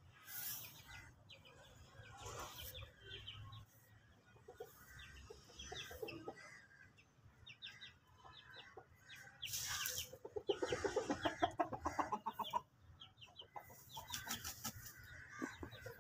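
Aseel rooster clucking faintly in scattered short calls, with a quick run of clucks about ten seconds in.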